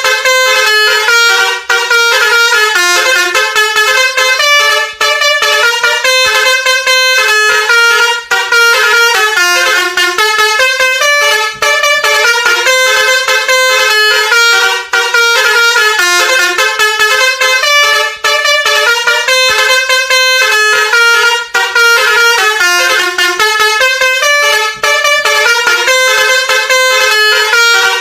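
Basuri V3 musical vehicle horn playing a loud melody of quick stepped notes. The tune breaks briefly about every three seconds as its phrases repeat.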